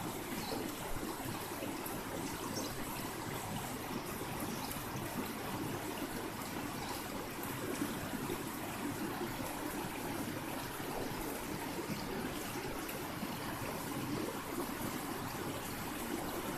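River water running steadily, an even rushing noise throughout.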